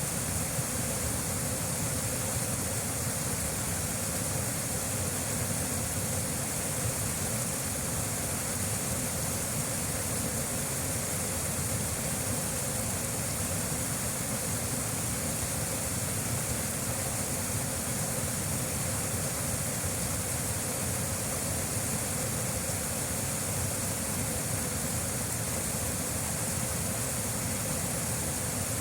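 Waterfall: a steady, even rush of falling water that does not change or break.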